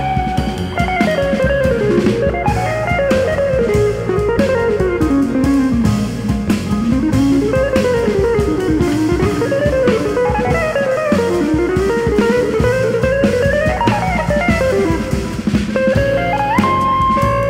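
Live jazz quartet playing: a hollow-body electric guitar plays a fast single-note solo line that sweeps down and back up in long runs, over drum kit, upright bass and piano.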